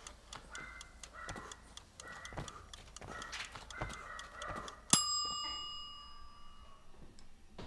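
A bell struck once about five seconds in, ringing out over about two seconds with several clear high tones. Before it, a faint, even ticking runs at about four ticks a second.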